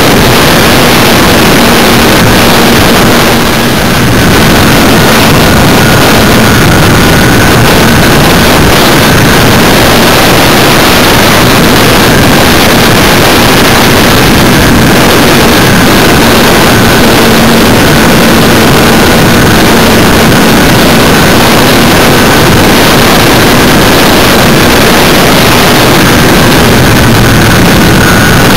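Himax brushless outrunner motor and propeller of a Multiplex Space Scooter RC plane, heard from a camera mounted on the airframe: a steady high whine over a loud rush of wind and airflow noise, dipping briefly about three and a half seconds in.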